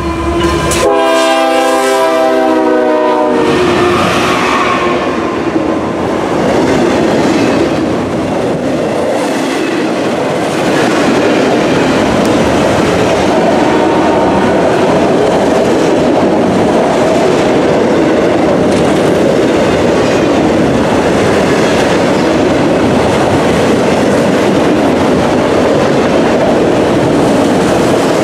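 A diesel locomotive's five-chime Nathan K5HL air horn blowing as the lead unit passes, cutting off about three and a half seconds in. Then the steady rumble and clickety-clack of autorack cars rolling past close by.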